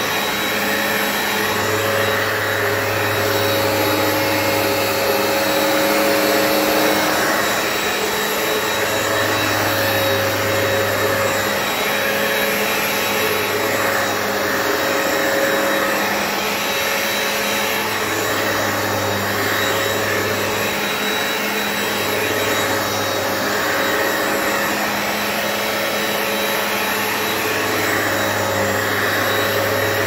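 Hoover Power Path upright carpet cleaner running steadily as it cleans a carpet stain. Under the motor there is a low hum that cuts in and out every few seconds.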